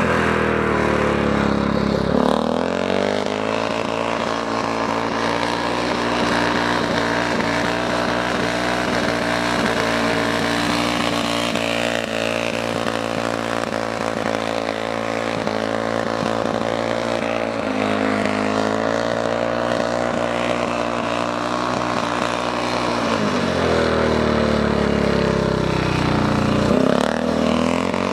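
Speedway motorcycle engine running hard as the bike laps on wet ice. The pitch falls over the first two seconds and then holds steady for about twenty seconds; near the end it drops again and then climbs back up.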